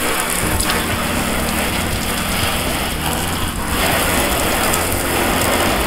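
Water spraying from a hose wand onto the side of a pickup truck: a steady hiss of spray hitting the body panels.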